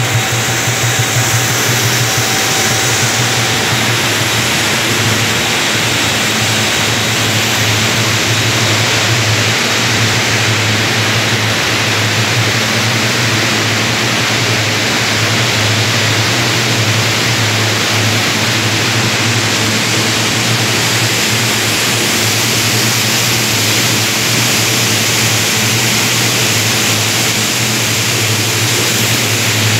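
Sugatec 50 hp continuous two-stage grain vacuum running: a steady, loud rush of air with a low hum under it.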